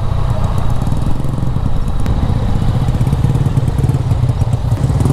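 Yamaha Tracer 900 GT's three-cylinder engine running steadily at low revs, close to idle, heard from the rider's position on the bike.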